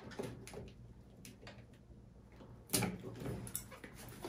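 Wire strippers working on electrical wire: a few faint, scattered clicks and snips, with a louder stretch of handling noise about three seconds in.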